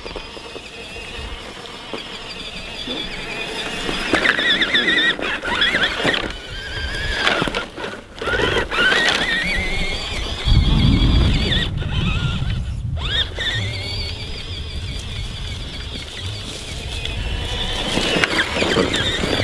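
Electric motor of a radio-controlled monster truck whining, its pitch rising and falling as the throttle changes, with a brief low rumble about ten seconds in.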